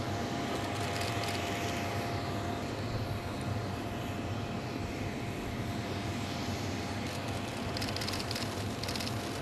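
Steady aircraft engine noise from a parked airliner: a low hum under a thin whine that fades about two seconds in. A run of short clicks comes near the end.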